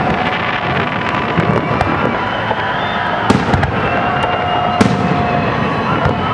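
Aerial firework shells bursting in a display: sharp bangs, the loudest about three and a half and five seconds in, over continuous crackling.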